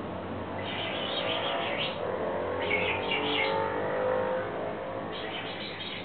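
African grey parrot giving rapid high chirps in three short bursts: about a second in, near the middle and near the end. Under them runs a steady droning tone with several pitches that is loudest in the middle.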